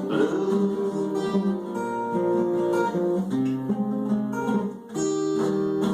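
Acoustic guitar playing the instrumental close of a country song after the last sung line, with held chords changing under a picked melody. A short gap comes just before five seconds in, then a new strummed chord rings on.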